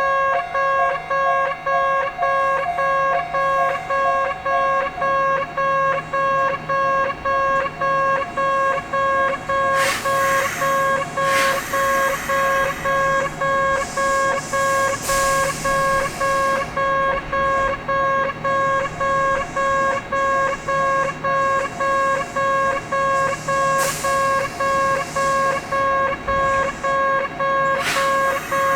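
A Japanese railway level crossing's electronic warning bell ringing in an even, repeating clang, about one and a half strokes a second. A second bell of a slightly different pitch stops about five seconds in. A few short rushes of noise come through near the middle and end.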